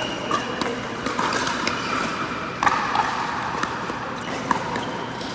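Pickleball paddles striking the plastic ball, with ball bounces on the indoor court: a string of sharp pops at irregular intervals, the loudest about two and a half seconds in, over steady background noise from the hall.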